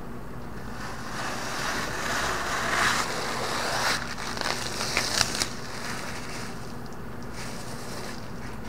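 Clear protective plastic film being peeled off the face of a 100W folding monocrystalline solar panel: a long crackling, tearing hiss that starts about a second in, grows louder, and ends in a few sharp crackles about halfway through, over a steady low hum.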